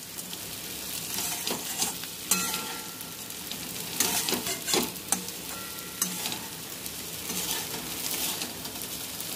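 Soaked raw rice, diced potatoes and ground spices frying in oil in a metal wok, sizzling steadily, while a flat metal spatula stirs and scrapes them against the pan in repeated irregular strokes.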